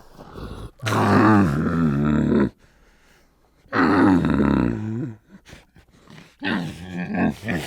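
A large animal calling with low, drawn-out roaring calls: two long ones, then a few shorter calls near the end.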